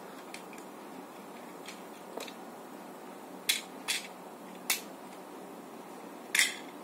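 Plastic parts of a small Tobot transforming toy car clicking as they are twisted and snapped into place by hand: about five sharp clicks, the loudest near the end.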